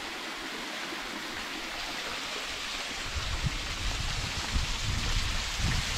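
Small creek water rushing steadily as it pours down a narrow sandstone chute into a pool. From about halfway through, low gusts of wind rumble on the microphone.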